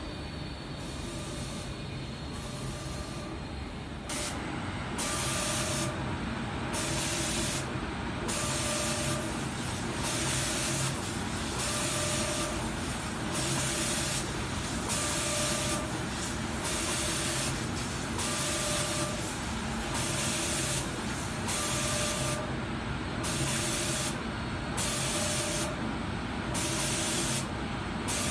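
Automatic spray-painting machine: its spray guns hiss in repeated bursts of atomised paint, switching on and off about once a second from about four seconds in, over a steady machine hum. A short higher tone recurs about every three seconds.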